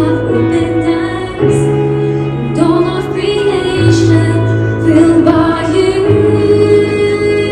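Music: a woman singing a slow melody over sustained chords that change every couple of seconds.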